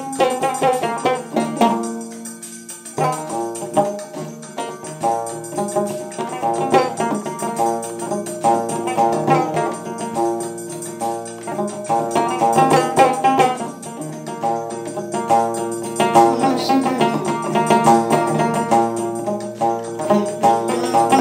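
A long-necked plucked string instrument played solo in a quick stream of picked notes, with no singing. The playing eases off briefly about two seconds in.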